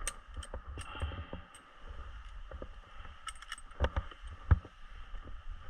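Tree climber's gear and spurs on the trunk: scattered clinks, scrapes and knocks, with two louder thumps about four seconds in, over a low rumble.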